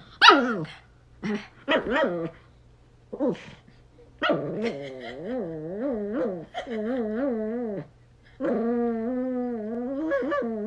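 Small Chihuahua-type dog howling: a few short yips, then long drawn-out howls whose pitch wobbles up and down.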